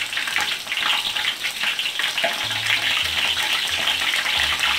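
Battered chicken pieces frying in hot oil in a wok: a dense, steady sizzle and crackle of bubbling, spitting oil.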